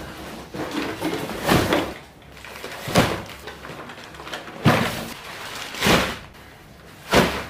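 Cardboard boxes being handled and unpacked from a large shipping carton: a run of thumps and scrapes of cardboard, with five louder knocks spread over the stretch, some sharp and some a little drawn out.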